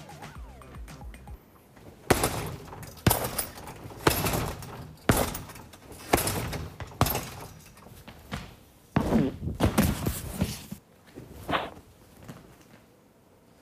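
Heavy thuds of kicks and punches landing on a hanging heavy punching bag, about one a second, followed by a fast flurry of hits.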